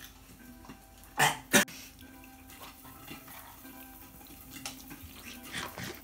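Spoon and dishes knocking and clinking on a plate during eating, with two sharp knocks a little over a second in and lighter ticks near the end. Faint background music underneath.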